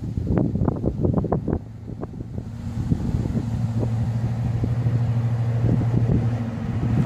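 Class 55 Deltic diesel locomotive approaching, its Napier Deltic two-stroke engines giving a steady low drone. A flurry of short knocks comes in the first couple of seconds.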